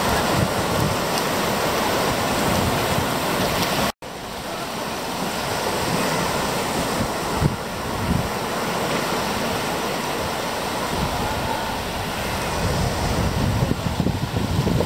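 Sea waves washing on a beach, with wind buffeting the microphone. The sound cuts out for an instant about four seconds in.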